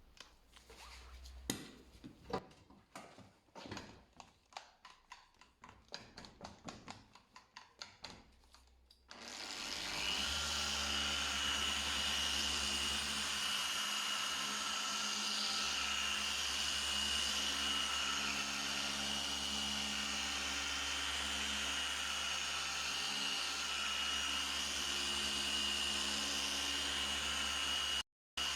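Scattered clicks and knocks of tools being handled, then a handheld electric power tool starts and runs at a steady speed with a constant high whine. It cuts out abruptly for a moment near the end and then runs on.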